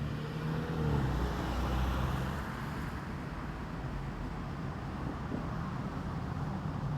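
Low, steady motor-vehicle and road noise, a car engine's rumble that swells from about a second in and eases off before three seconds.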